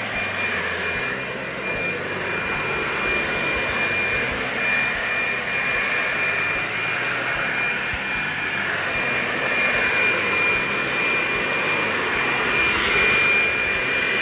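Corded electric leaf blower running steadily: a loud rush of air with a high, steady whine from its motor.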